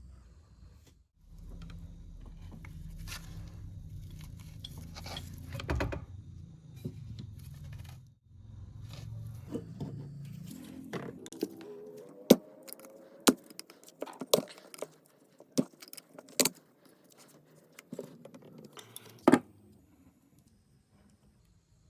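Metal parts of an old bullet reloading tool being handled, with scraping and rubbing for the first several seconds and then a run of sharp metallic clicks and clinks in the second half.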